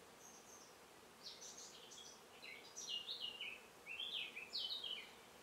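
A bird singing outdoors: a string of short, high notes, many sliding down in pitch, starting about a second in and stopping shortly before the end, over faint background hiss.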